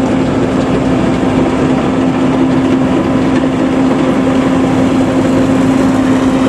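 Homemade Vietnamese combine harvester's engine running steadily while it cuts rice, a constant loud hum with one low held tone over the clatter of the machine.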